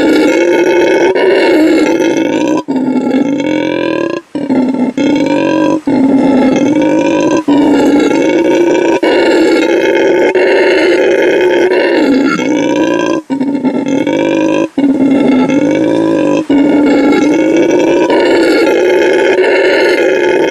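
Howler monkey howling: a loud, continuous deep roaring call with many overtones, broken by brief gaps every second or few.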